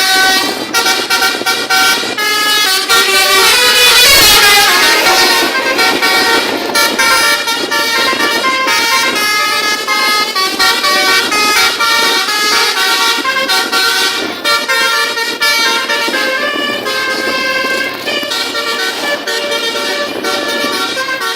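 A bus's telolet horn, a multi-trumpet musical air horn, playing a fast tune whose notes change several times a second. It is loudest about four seconds in.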